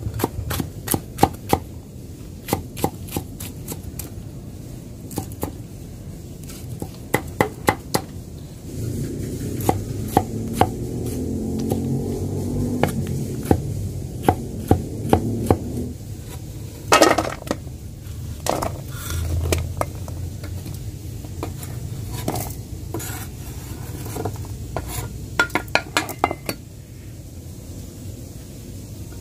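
Broad kitchen knife chopping vegetables on a wooden cutting board: runs of quick, sharp knocks with short pauses between.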